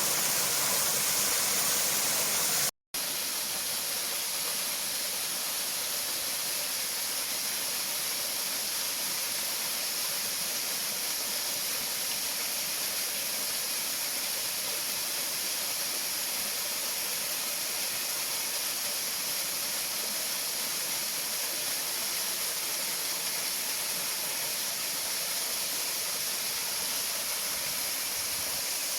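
Waterfall rushing steadily. Just under three seconds in, the sound cuts out for a moment and comes back slightly quieter.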